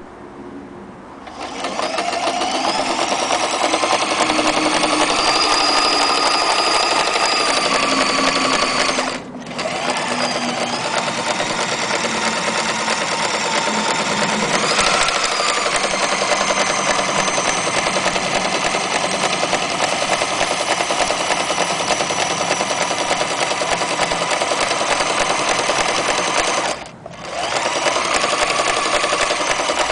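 Frister & Rossmann Model 503 electric sewing machine running, its motor rising in pitch to a steady whine about a second in. It stops for a moment twice, about a third of the way through and again near the end, then starts up again each time.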